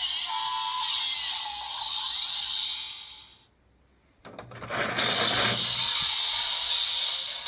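Electronic sound effects from a DX Rabbit Tank Sparkling toy's small speaker, fading out about three seconds in. After a brief silence come a couple of clicks and about a second of hiss, then the electronic tone starts again.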